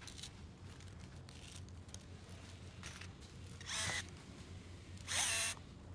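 Hard plastic RC kit parts being worked by hand: faint clicks of small parts, then two short scraping noises near the end, the second with a rising squeak.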